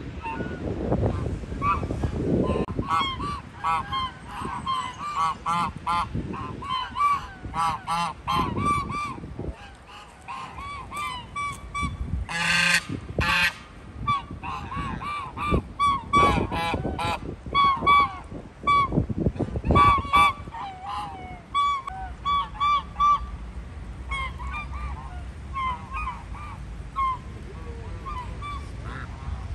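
A flock of domestic geese honking: many short calls in quick succession, often overlapping, busiest in the middle and thinning out near the end.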